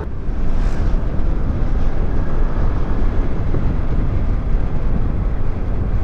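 Steady wind rush and road noise on the microphone of a Yamaha scooter ridden at about 55 km/h.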